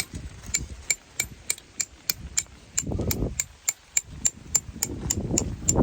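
Rapid, even metallic tapping, about four strikes a second, typical of a hammer driving a tent peg. Low wind gusts rumble on the microphone about halfway through and again near the end.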